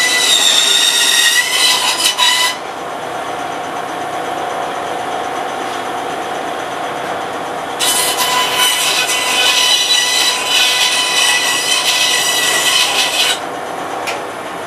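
Bandsaw blade cutting into a wooden axe handle to clean out the kerf for the wedge, in two passes with a high whining squeal. The first pass ends about two and a half seconds in, and the second runs from about eight seconds to near the end. Between the passes there is a quieter steady hum.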